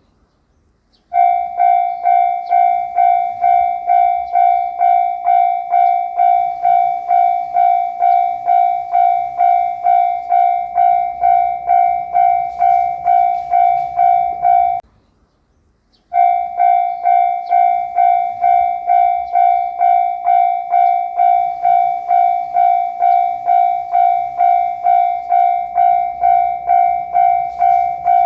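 Japanese railway level-crossing warning bell ringing its electronic "kan-kan" tone at about two strikes a second, signalling an approaching train. It starts about a second in, stops briefly a little over halfway through, then rings on again.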